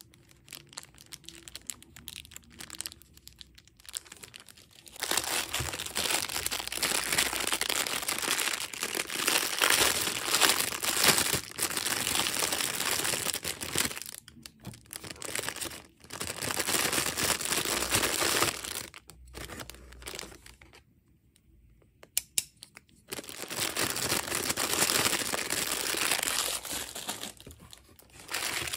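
Thin clear plastic packaging bags crinkling as they are handled and rummaged through in a box of bagged items. The crinkling comes in long stretches, softer in the first few seconds, with a quiet pause about two-thirds of the way through.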